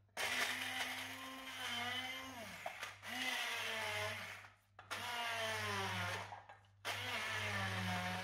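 Handheld stick blender pulsing four times in a small cup of pesto ingredients (basil, nuts, garlic, grated cheese, olive oil), its motor pitch sagging and recovering as the blade works through the thick, still-dry mixture. There are short pauses between the pulses.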